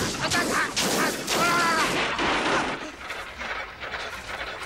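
A loud crashing, smashing din of a homemade machine breaking down, with a man crying out once about a second and a half in. The noise drops off after about two and a half seconds.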